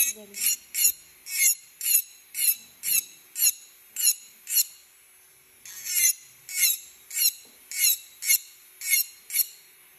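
A dental lab handpiece with an acrylic trimming bur grinding the border of a pink acrylic denture record base in short, repeated strokes, about two a second, with a pause about halfway through. A faint steady motor tone runs beneath.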